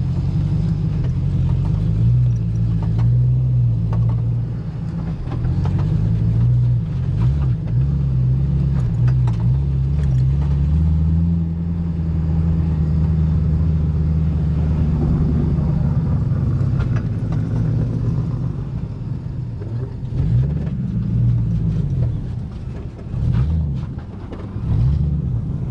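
Motor vehicle engine running steadily under way, a low drone. Several times in the last third its pitch briefly rises and falls, as with gear changes or throttle changes.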